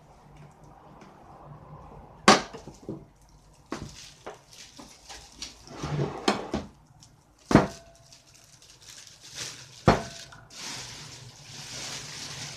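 Glass baking dishes and a bowl knocking and clinking on a wooden table as raw meat is unpacked into them, with three loud knocks, two of which ring briefly. Plastic bags of meat rustle and crinkle, steadily from about ten seconds in.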